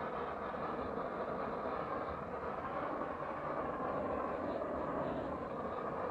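Handheld blue gas-cartridge blowtorch burning, an even rushing hiss that holds steady throughout.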